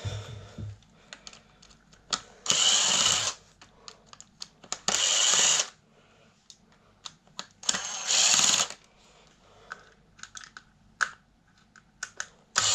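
Tool noise while a desk fan is taken apart: four rasping bursts, each about a second long, with light clicks and knocks of loose parts between them.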